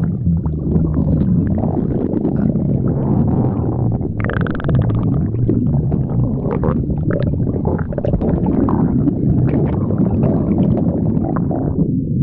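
A person's stomach growling and gurgling: a continuous low rumble with many quick gurgling pops, and a squeaky rising-and-falling gurgle about four seconds in. The pops die away just before the end, leaving only the low rumble.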